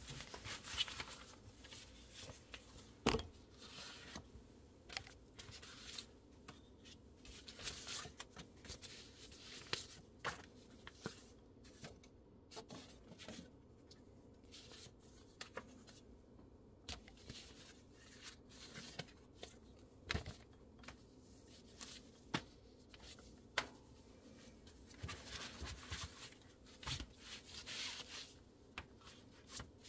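Old paper brochures and letters rustling and sliding as they are handled and laid down on a tabletop, with scattered soft taps and shuffles and a sharper tap about three seconds in.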